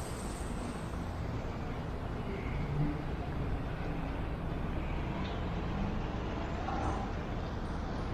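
City street traffic: a steady low rumble of passing cars.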